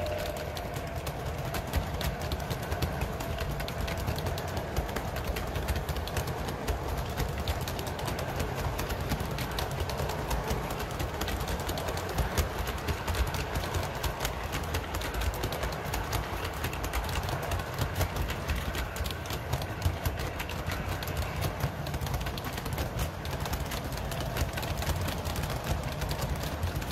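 O gauge three-rail model freight train rolling past: a steady low rumble of the cars' wheels on the track with constant rapid clicking.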